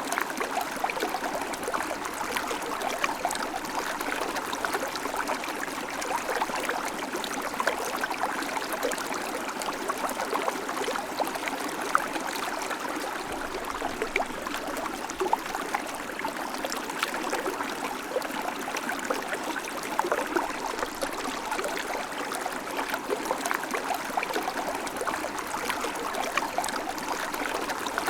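River water flowing steadily over stones, a continuous rushing with small splashes and gurgles throughout.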